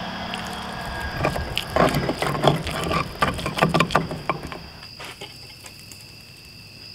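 Stone pestle knocking and scraping around the inside of a stone molcajete while mashing wet chile salsa: a run of sharp clicks and clacks that dies away a little past halfway.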